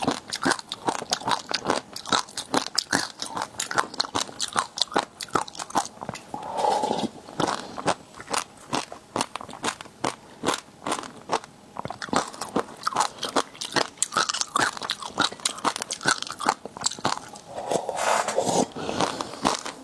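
Close-miked eating of seafood: rapid crunching and chewing, with many sharp crackling bites. A brief smoother, lower sound comes twice, about seven seconds in and again near the end.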